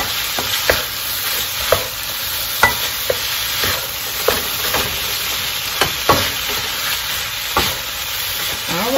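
Shrimp fried rice sizzling in a hot wok as it is stir-fried with a wooden spatula: a steady sizzle with the spatula scraping and knocking against the pan roughly once a second.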